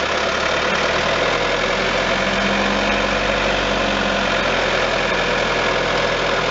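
Peugeot 508's engine running steadily, with a low hum that grows stronger for a couple of seconds in the middle. This is a car whose owner is chasing a noise like something resonating at one particular engine speed.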